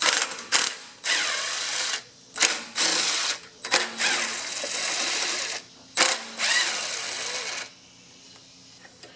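Cordless power driver spinning in several short runs, speeding up and slowing down, as bolts are backed out, most likely the valve cover bolts on a small four-stroke engine being opened to check for a sticking valve.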